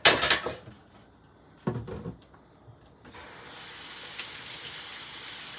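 A sharp knock at the start and a softer knock about two seconds in, then a kitchen faucet running steadily into the sink as a hiss from about three seconds in.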